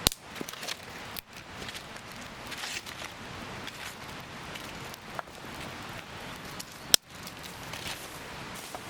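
Wood campfire crackling over a steady hiss, with scattered small ticks and two sharp loud snaps, one at the very start and one about seven seconds in.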